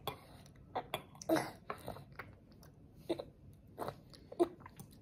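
A toddler chewing food, with short wet smacks and clicks of the mouth every half second or so. The toddler has a nose blocked by a cold.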